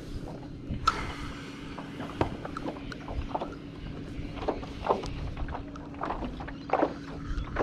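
Small waves slapping and knocking against a Hobie Lynx kayak's plastic hull in wind, a scatter of short knocks and splashes over a faint steady low hum.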